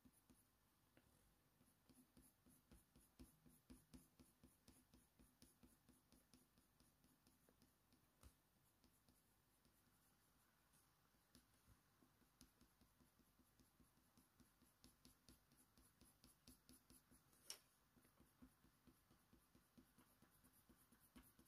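Near silence with the faint scratching of an oil-based colour pencil (Faber-Castell Polychromos, dark sepia) stroking hot-press watercolour paper as it lays down short fur strokes. A single light click comes a few seconds before the end.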